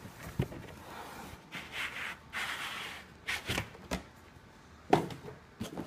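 Cardboard product box being handled and turned over: scratchy rubbing and sliding of cardboard, with several light knocks as the box bumps against a wooden desk.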